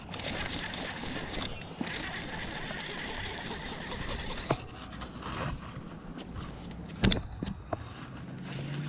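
Baitcasting reel whirring while a topwater walking bait is cast and retrieved, with a few sharp knocks; the loudest knock comes about seven seconds in.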